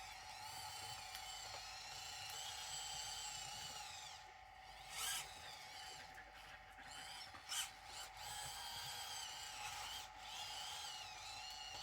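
Faint whine of a small electric motor, its pitch rising and falling as the speed changes, over a steady hum, with two short louder bursts around the middle.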